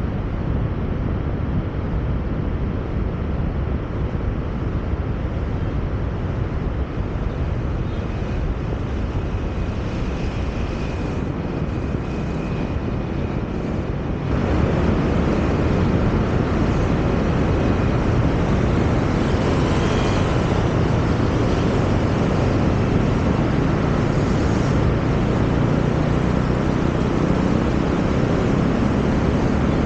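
Steady road and wind noise of a car driving in city traffic, mostly a low rumble. About halfway through, the noise suddenly jumps louder and stays at that level.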